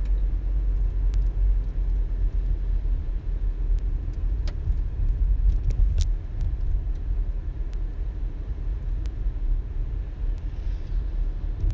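Steady low road rumble heard from inside a moving car, with a few short sharp clicks, the loudest about halfway through.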